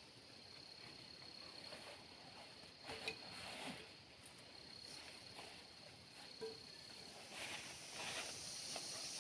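Forest insects trilling in a steady high drone, faint, with a few scattered rustles and light knocks about three seconds in and again near the end.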